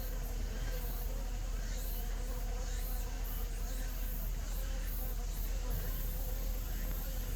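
Korean native honeybees (Asian honeybees) buzzing in flight around the hive entrance, with many drones coming and going; a steady buzz with wavering pitches as bees pass close. The keeper wonders whether the drone traffic means the colony is getting ready to swarm.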